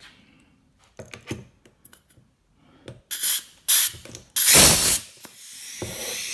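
Air-hose quick-connect coupler clicking onto a pneumatic impact wrench, then several short blasts of compressed air as the gun is triggered, the loudest about a second long. A steady hiss of air then sets in and grows: a leak at the fitting.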